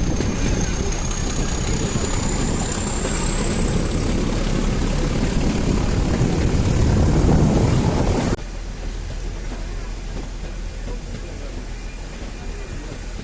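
Nilgiri Mountain Railway toy train running, a loud rumbling ride noise with a thin high whine that rises steadily in pitch for about eight seconds; then the sound cuts to a quieter, steadier running noise.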